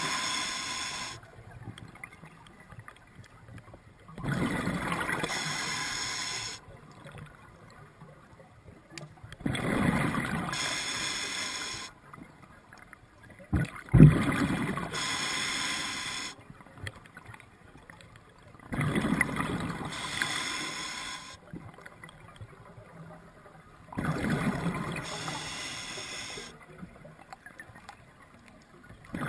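Scuba diver breathing through a regulator underwater: a rush of exhaled bubbles about every five seconds, each lasting a couple of seconds, with quieter inhalations between. A single sharp knock about halfway through is the loudest sound.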